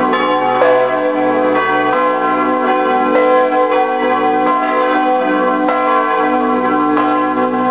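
Swinging church bells ringing together in full peal (volée), heard close up inside the belfry. Overlapping strokes land about once a second over a dense, continuous ringing of several pitches.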